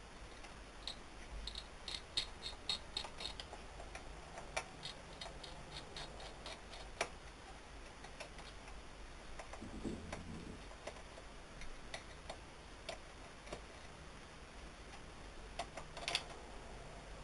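Small hard clicks from hands working on a laptop's parts. There is a quick run of about three clicks a second early on, then scattered single clicks, with a soft low rustle about ten seconds in.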